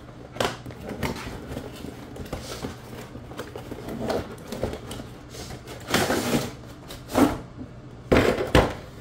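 Handling noises from unpacking a toy jet: irregular rustles, scrapes and knocks of packaging and plastic, the strongest about six seconds in and again near the end, over a steady low hum.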